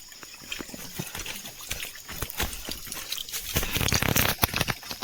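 Footsteps and brushing through bamboo and leaves: irregular clicks, knocks and rustles, thickest about four seconds in.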